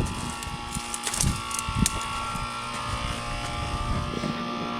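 2006 Goodman CPLE two-ton heat pump running in its defrost cycle: a steady mechanical hum with several high steady tones. A few short knocks come between about one and two seconds in.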